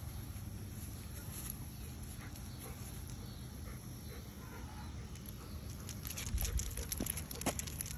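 Basset hound sniffing around the base of a pole in the grass, over a steady low rumble. A low thump and a few sharp clicks follow about six to seven and a half seconds in as the dog moves back onto the sidewalk.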